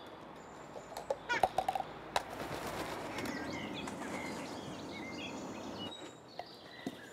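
Quiet outdoor ambience with small birds chirping faintly in the background. A cluster of short light clicks and taps comes about a second in, a soft rustling hiss fills the middle, and a few more light taps come near the end.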